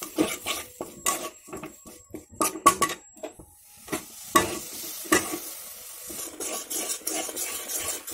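Metal spatula scraping and clinking against an aluminium kadai while stirring jaggery melting in a little water, in irregular strokes. A light sizzle of the bubbling jaggery syrup fills in over the second half.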